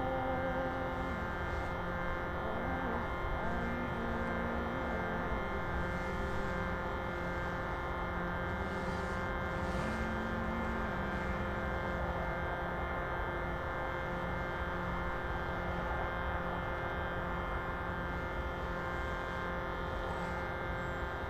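A steady, many-toned musical drone, with a voice holding a few long, low notes over it in the first half, and a low rumble of wind noise underneath.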